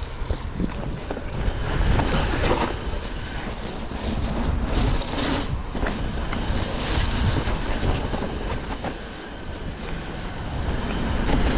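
Wind buffeting the camera microphone while a mountain bike rolls down a wet dirt trail, a rushing rumble that rises and falls.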